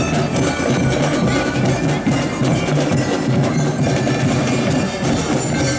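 Drum and lyre band playing: bell lyres ring out over a steady beat of drums.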